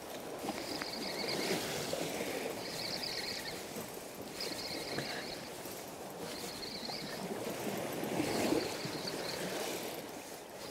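Sea washing and surging against the rocks below, swelling twice. Over it, a small spinning reel being wound in short spells, a light whirr repeated several times as the lure is retrieved.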